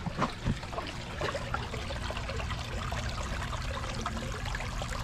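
Water trickling and pouring steadily into a koi pond.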